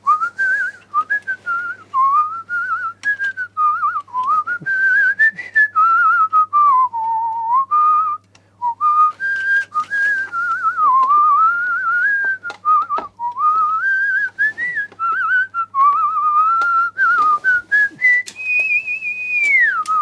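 A person whistling a wandering tune with a slight warble, ending on a long high held note that slides down at the very end. Light clicks and knocks from handling the telephone's case and parts run underneath.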